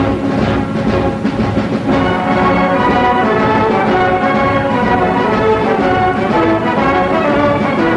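Orchestral film-score music with brass. It is busier and more percussive for the first couple of seconds, then settles into held brass and string chords.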